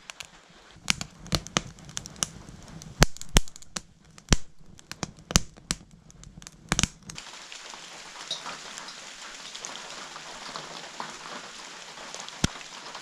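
Split kindling burning in a wood stove's firebox, crackling with sharp pops of varying loudness over the low rumble of the flames. About seven seconds in, the sound changes to a steady hiss with only faint crackles.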